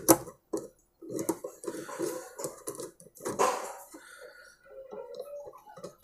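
A screwdriver tightening the nut on a mixer grinder's motor shaft inside a plastic coupler: irregular scraping and small metallic clicks, with a sharp click at the start.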